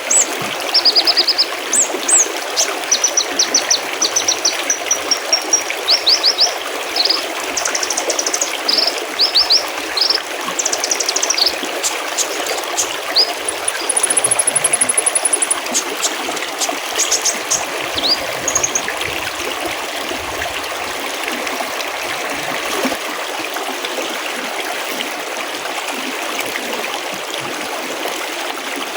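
Mountain stream trickling and burbling steadily, with small birds giving quick high chirps and rapid trills over it until about two-thirds of the way through, after which only the water is heard.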